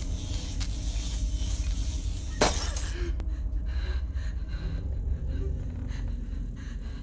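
Horror film soundtrack: a low, steady rumbling drone, cut by a single sharp crash about two and a half seconds in.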